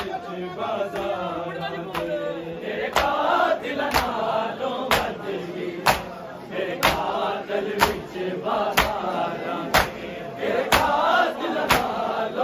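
Crowd of mourners chanting together while striking their chests in unison with their hands (matam), the beats falling evenly about once a second.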